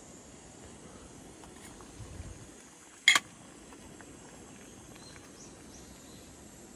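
Faint, steady, high chirring of insects, with one sharp knock a little after three seconds in, the loudest sound, and a soft low thump just before it.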